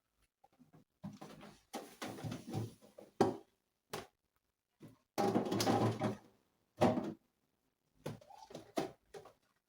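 Containers and food being moved around inside a refrigerator: irregular bursts of plastic rustling and shuffling, with a sharp knock about three seconds in and another near seven seconds.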